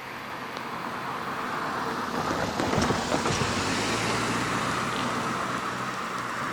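A road vehicle passing close by, getting louder to a peak about three seconds in, with a couple of sharp knocks as it passes, then a steady low engine hum with traffic noise.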